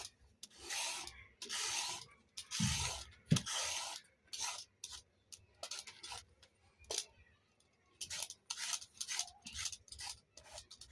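A carrot being scraped with repeated rasping strokes. The first few strokes are longer, then they become shorter and quicker.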